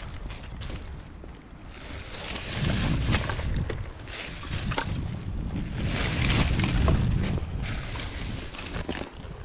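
Wind buffeting the microphone in gusts, swelling twice, with crinkling and rustling of old plastic bags and fishing line being pulled out of a crack in the concrete.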